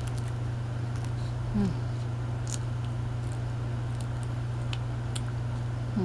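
Quiet chewing of a bread roll with chocolate spread, faint soft mouth clicks, over a steady low hum. One brief falling vocal sound, like a short 'mm', about a second and a half in.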